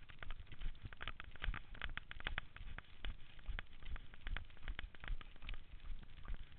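Running footsteps on a dirt forest trail: a quick, even rhythm of low thuds about three a second, with sharp clicking and crunching over the top.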